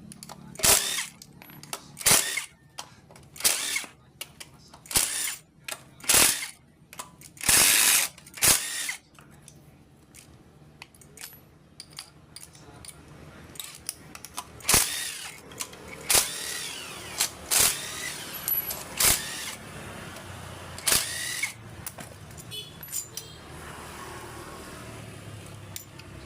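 Power tool run in short bursts, about one every second and a half, seven or so times. Later come irregular metallic clinks and knocks with a faint ring.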